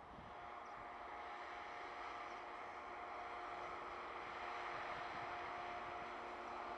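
A Freightliner Class 66 diesel locomotive's two-stroke engine droning with a steady multi-tone hum, growing gradually louder as the freight train approaches.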